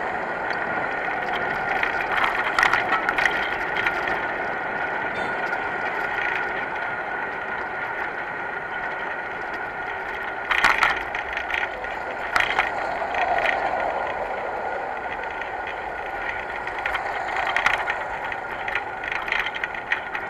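Bicycle on the move: steady rolling noise, broken a few times by short clusters of clicking and rattling.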